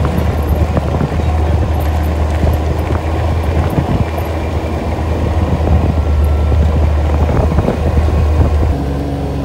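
ATV engine running on a moving ride over a rough dirt track, a steady low drone with frequent small knocks and rattles; the engine note changes near the end.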